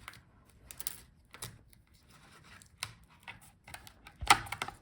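Scattered plastic clicks and taps from a thin plastic trim strip being pried off a laptop's display assembly, with a louder cluster of clicks near the end.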